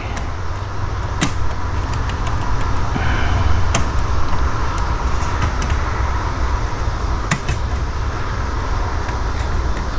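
Small clicks and taps of metal and plastic parts inside an opened Blaupunkt in-dash six-disc CD changer as fingers pry at its plate and disc platters, with a few sharp clicks standing out over a steady low rumble.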